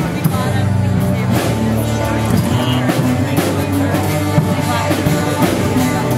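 A song with a steady drum beat and singing.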